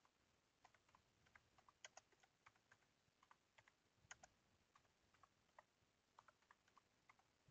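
Faint typing on a computer keyboard: irregular key clicks, several a second, as a short phrase is typed.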